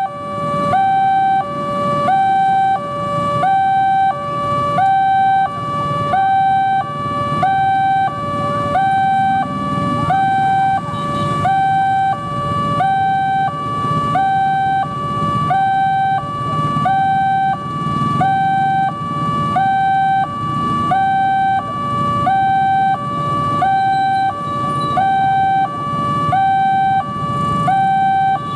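Railway level crossing's electronic warning alarm sounding a two-tone high-low chime over and over, about one cycle every second and a half, warning that a train is approaching. A low traffic rumble sits underneath.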